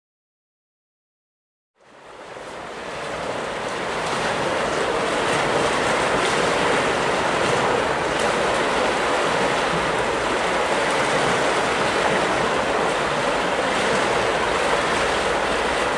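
Silence, then a steady rushing noise fades in about two seconds in and holds evenly, with no clear shots or impacts in it.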